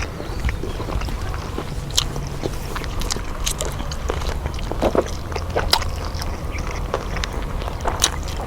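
Someone eating: scattered short crunchy clicks of biting and chewing, over a low steady hum.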